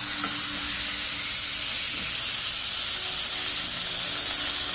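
Smashburger patties sizzling steadily in a hot cast iron braiser. The hiss starts abruptly and holds at an even level.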